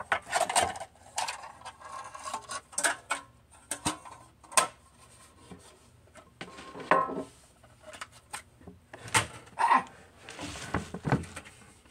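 Handling of a metal Pokémon card tin and its plastic insert tray: irregular light clatter, clicks and rubbing of metal and plastic.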